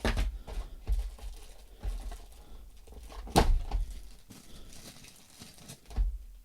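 Plastic packaging rustling and crinkling as small parts are handled, with several knocks; the sharpest knock comes a little past halfway.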